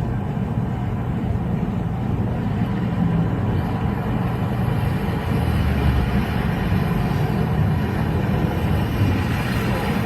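A vehicle in motion: a steady low rumble of engine and road noise, with no sudden changes.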